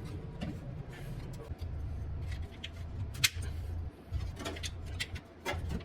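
Whirlpool washing machine running with a steady low hum and irregular sharp clicks and knocks, the loudest about three seconds in: the strange noise the machine is making.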